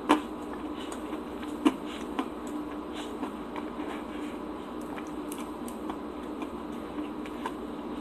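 Steady hum of room tone with scattered soft clicks, and two sharp clicks about a second and a half apart near the start.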